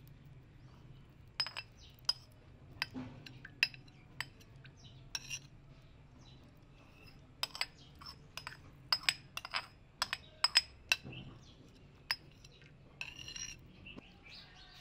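Kitchen utensils clinking: more than a dozen sharp, ringing clinks of metal and glass, spaced irregularly and coming fastest about eight to eleven seconds in.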